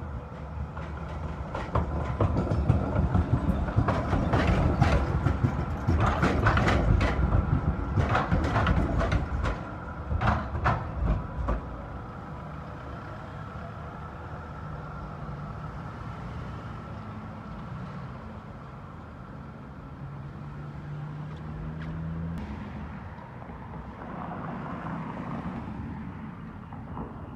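A B-class articulated tram's wheels clatter over the points and crossings of a track junction, a rapid run of clicks and knocks that fades out about twelve seconds in. Street traffic runs steadily after that, with a low engine hum rising in pitch midway and a single click at about 22 seconds.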